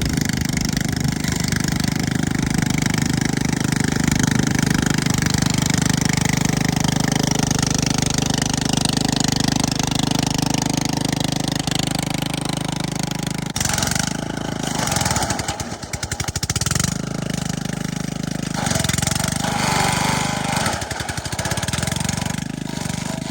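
Remote-control brush mower's engine running while the mower cuts through thick grass and weeds, a steady drone. About halfway through it turns uneven, dipping and swelling as the load on the cutter changes.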